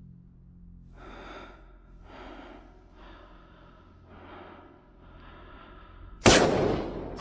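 A man breathing slowly and heavily, one breath about every second, while he aims a rifle. Near the end comes a sudden, very loud bang that dies away over most of a second.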